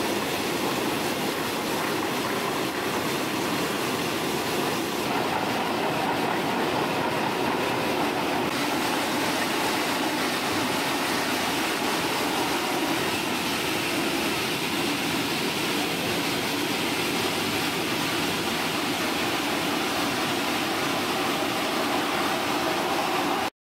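HTC Duratiq RX6 four-disc concrete floor grinder running and grinding a concrete floor: a loud, steady, even noise that stops abruptly near the end.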